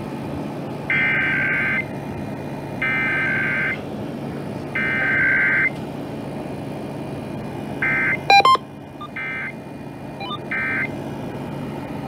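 Emergency Alert System SAME data bursts played through a Uniden BC370CRS scanner radio's speaker: three harsh buzzing header bursts of about a second each, then, after a pause, three short end-of-message bursts marking the close of a Required Weekly Test. A brief, loud beep falls just after the first end burst, over a steady hum.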